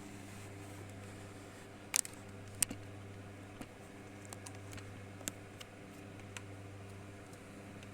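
Irregular sharp ticks and clicks, loudest about two seconds in, over a steady low hum.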